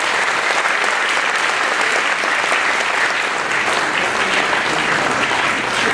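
Lecture-hall audience applauding steadily, a sustained clatter of many hands clapping.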